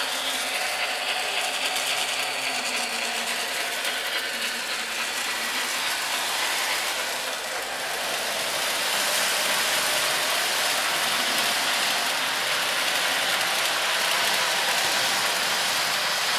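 Model railway train running round a track helix: the steady mechanical whirr of the model 241P steam locomotive's motor and gearing and the wheels rolling on the rails as it hauls a rake of passenger coaches. It grows a little louder about halfway through.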